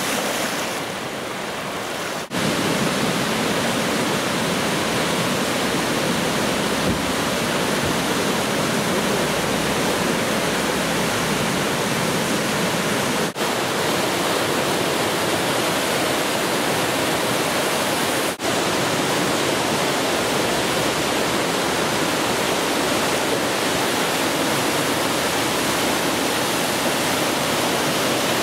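Ahr river in flood: fast, swollen water rushing and churning over rapids, a steady dense rush of water. It grows louder about two seconds in and has brief breaks about thirteen and eighteen seconds in, where the footage is cut.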